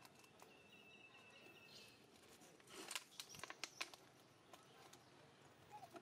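Quiet outdoor ambience with a faint, high, rapidly repeating trill for a second or so early on, then a short cluster of soft sharp clicks about three seconds in.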